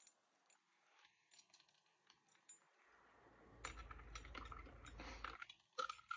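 Faint clicks and ticks of a metal spinnerbait and its blades being handled and put back into a plastic Plano Edge 3700 tackle box. Past the middle there is a longer stretch of rustling and handling noise.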